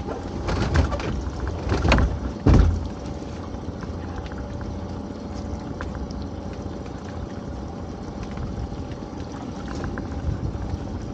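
Knocks and clatter of a lobster pot being handled aboard a small open boat, the loudest thump about two and a half seconds in. Then steady water and boat noise with a faint even hum.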